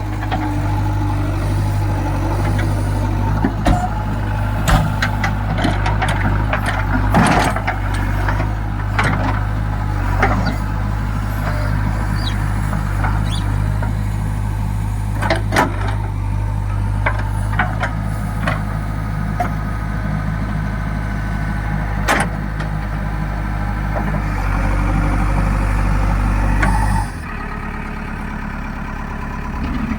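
JCB 3DX backhoe loader's diesel engine running steadily under hydraulic work, with scattered knocks and clanks from the working gear. Near the end the engine note drops suddenly to a lower, quieter run.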